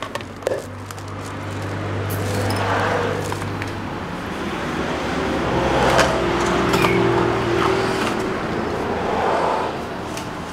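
A motor vehicle going by: its engine swells over several seconds and fades away near the end. A few sharp clicks sound over it.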